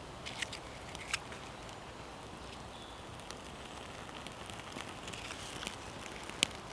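Small birch-bark tinder flame catching in a larch fire lay, crackling faintly, with a few sharp snaps and clicks of sticks and bark being handled; the loudest single snap comes near the end.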